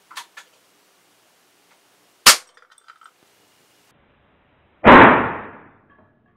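Hammerli Pneuma .177 PCP air rifle shooting at a plastic container: a sharp crack about two seconds in, then a louder, deeper blast a little before five seconds that dies away over about a second.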